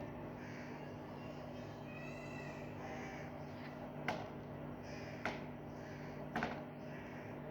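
Three sharp clicks of small plastic miniature kitchen toy pieces being handled and set down, spaced about a second apart, over a steady electrical hum. A short high-pitched cry comes about two seconds in.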